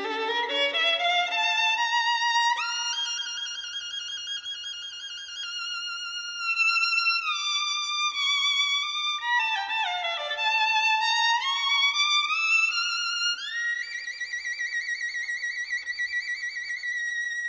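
Instrumental music: a solo violin plays a slow melody, sliding between notes and wavering on the held ones. It climbs early on, falls in a slide near the middle, and rises into a long high note for the last few seconds.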